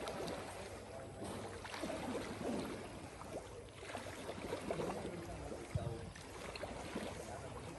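Pool water splashing and swishing as a swimmer swims breaststroke, rising and falling with the strokes.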